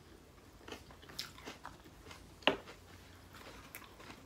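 People chewing and biting fast food: faint mouth sounds and scattered small clicks, with one sharper click about two and a half seconds in.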